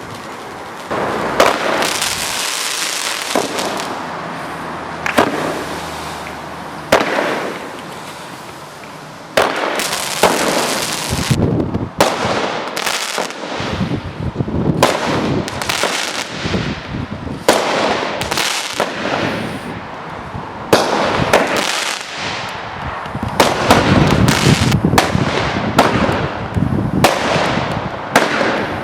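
Consumer fireworks from a Champion box firing: a rapid series of launches and bangs with hissing, crackling bursts, starting about a second in and going on throughout.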